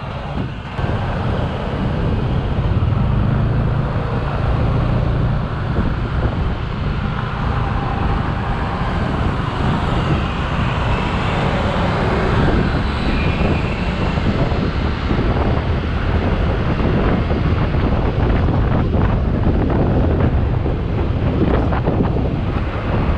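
Motorcycle engine running while riding in city traffic, with road and wind noise. It gets louder about a second in and then stays steady.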